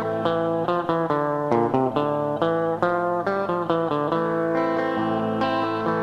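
Solo guitar improvisation: a steady stream of plucked single notes and chords, each note left ringing.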